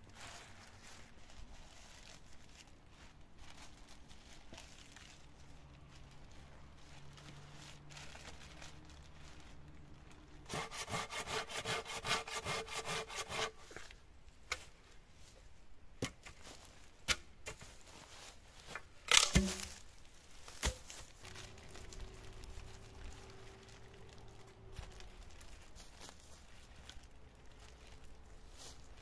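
Hand saw cutting through a thin wooden pole in a quick run of rasping strokes lasting about three seconds. A few sharp wooden knocks follow as poles are handled, the loudest about two-thirds of the way through.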